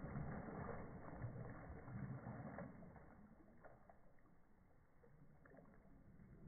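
Water splashing and sloshing in a small children's paddling pool as a toddler moves through it, strongest for the first two to three seconds, then dying down.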